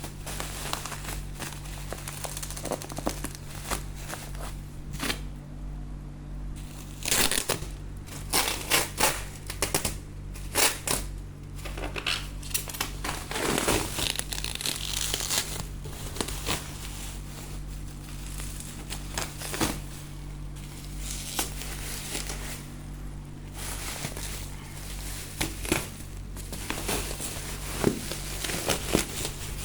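Packaging being handled while a refrigerator is unboxed: irregular crinkling and crackling, busiest in the middle and again near the end. A steady low hum runs underneath.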